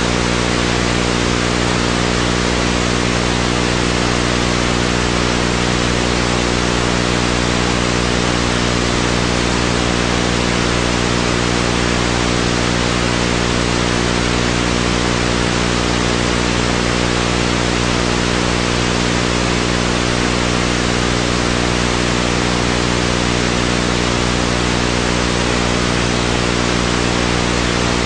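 Loud, perfectly steady hiss like static, with a constant low hum underneath; nothing starts, stops or changes.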